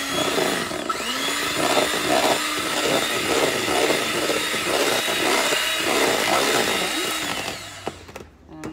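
Electric hand mixer running steadily with a motor whine, its beaters churning thick pound cake batter in a plastic bowl to mix in an egg. It switches off about a second before the end.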